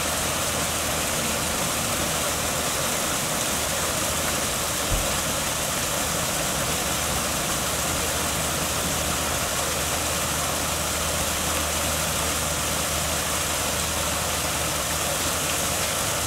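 Steady rush of water pouring over a small weir and churning into a rocky channel, with a brief low bump about five seconds in.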